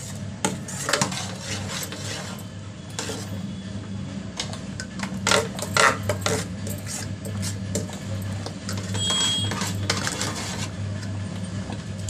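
A metal spoon stirs thick rice kheer in an aluminium pot, scraping and clinking against the sides, over a steady low hum.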